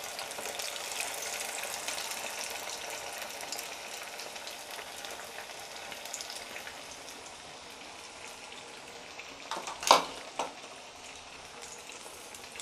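Masala-coated chicken wings frying in hot oil: a steady sizzle and crackle of bubbling oil that eases slightly over time. A brief sharp knock comes about ten seconds in, with a softer one just after.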